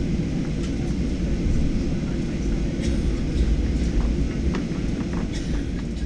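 Cabin noise inside a Boeing 737-800 taxiing: a steady low rumble from the CFM56 engines at idle, with a few light knocks and rattles in the cabin.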